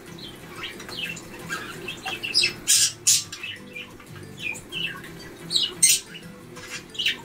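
Caged pet birds chirping over and over, with loud squawks about two and a half to three seconds in and again near six seconds in.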